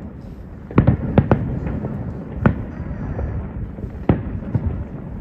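Aerial fireworks bursting: a series of sharp bangs, a cluster of three about a second in, then single bangs near the middle and about four seconds in, over a continuous crackling rumble of further shells.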